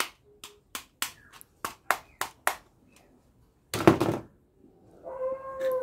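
Plastic toy pistol's trigger mechanism clicking about a dozen times in quick succession. It is followed by a louder clatter of plastic on the table, and a drawn-out falling tone near the end.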